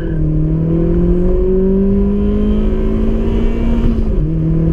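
A 270 hp Opel Astra Bertone's engine under full acceleration, heard from inside the cabin. The pitch climbs steadily as the revs rise through one gear, then drops sharply with an upshift about four seconds in.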